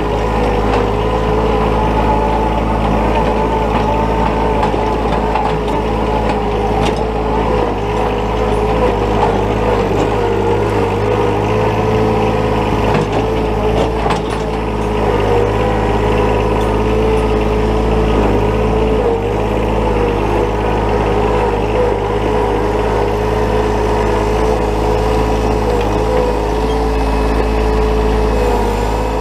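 Compact John Deere 1-series tractor's diesel engine running steadily while working the backhoe.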